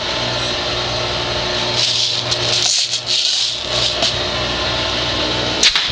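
Steady mechanical hum with a rattle. Near the end comes one sharp pop as a homemade pneumatic airsoft shotgun fires a low-pressure shot of BBs.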